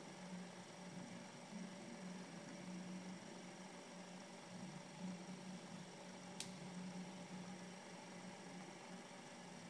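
Faint low electrical hum that swells and fades, with thin steady high-pitched whines over it, and one sharp click about two-thirds of the way through. The film's own soundtrack is not heard.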